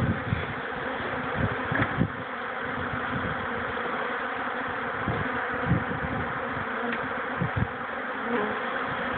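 Dense, steady buzzing of a large mass of honey bees in a robbing frenzy, swarming a dismantled hive to strip spilled honey. A few short low thuds break in now and then.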